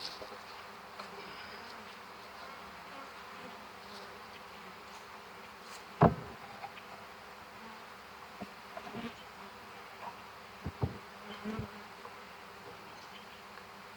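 Swarm of honey bees buzzing in a steady hum around an open hive and package. A few sharp knocks cut through it, the loudest about six seconds in and a few more near eleven seconds.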